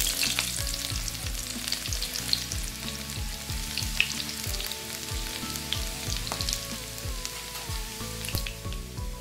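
Chopped garlic frying in hot cooking oil in a pan for a tadka: a steady sizzle with crackling pops, strongest just as the garlic goes in and easing slightly.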